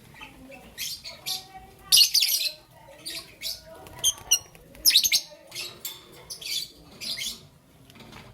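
Young peach-faced lovebird chirping: a run of short, sharp, high-pitched calls, loudest about two seconds in and again about five seconds in.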